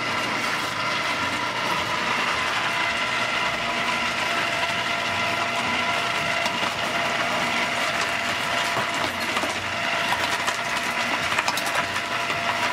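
Proctor-Silex electric ice cream maker's motor running steadily, turning the canister. Ice is poured from a bag into the bucket, with scattered clicks of ice clattering in near the end.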